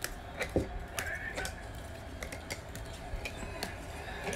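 Hard plastic trading-card holders clicking and tapping as they are handled and set into plastic display stands: scattered light clicks, with a few sharper ones about half a second and a second in.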